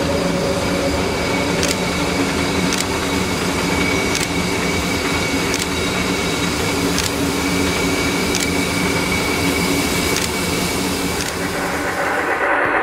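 Steady mechanical hum of railway equipment at a station, with a faint tick about every second and a half. Near the end it gives way to a brighter, noisier train running sound.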